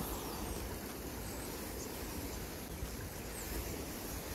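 Steady rush of a shallow river running over stones, with a few faint, high, falling bird chirps.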